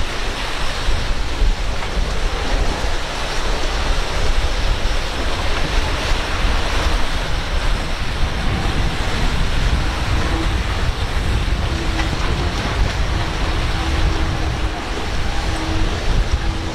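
Surf and wind buffeting the microphone, with a low rumble, joined from about ten seconds in by the faint steady drone of a passing boat's outboard motor.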